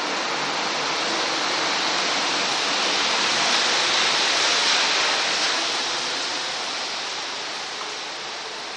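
Bombardier CX-100 rubber-tyred light-rail car pulling out of the station: a steady rushing noise that swells about four seconds in, then slowly fades as the train moves away.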